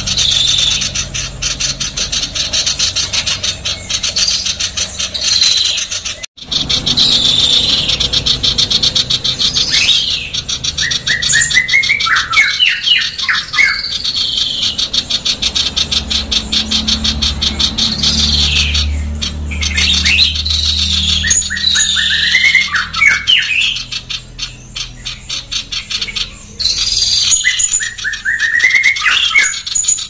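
Female common iora calling in a fast, close-packed, harsh chatter, broken by runs of quick stuttering notes that rise and fall, about a third of the way in, around two-thirds and near the end.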